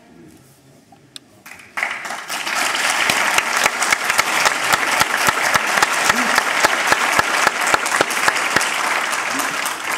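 A crowd applauding: the clapping breaks out suddenly about two seconds in and keeps going steadily.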